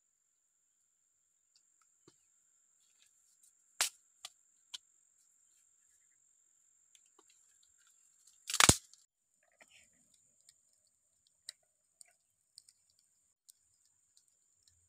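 Dry wooden sticks being handled and laid down, with a few sharp clicks and one loud crack about nine seconds in, then scattered small ticks.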